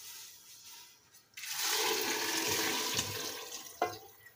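Water poured from an aluminium kettle into a pot of simmering bean stew: a steady pour of about two seconds that starts a little over a second in, with a light knock near the end.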